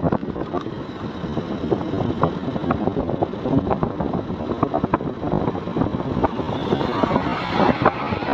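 Motorcycle engine running while riding, with many short sharp clicks and knocks over it.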